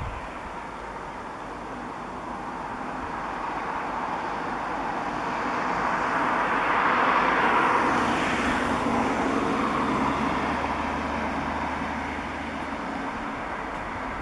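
A vehicle passing by: its noise swells to a peak about halfway through and then fades away, with a low hum near the end.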